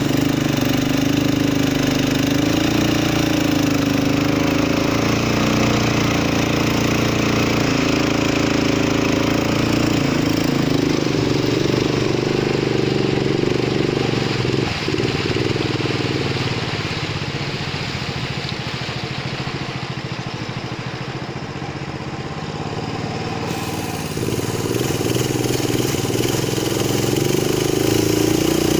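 Longtail boat engine running under way. It eases off and gets quieter for several seconds in the middle, then picks back up near the end.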